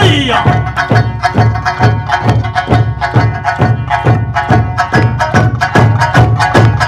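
Eisa drumming: large barrel drums (ōdaiko) and smaller hand drums struck together in a steady, even rhythm of deep thumps over Okinawan folk-music accompaniment.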